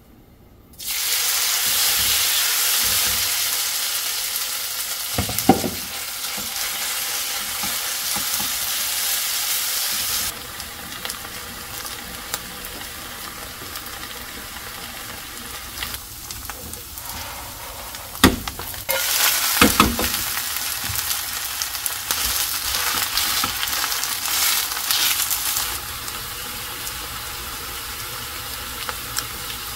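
Shredded-potato pancake sizzling in hot oil in a frying pan. The sizzle starts suddenly about a second in, eases off partway, then grows louder again, with a few short knocks against the pan.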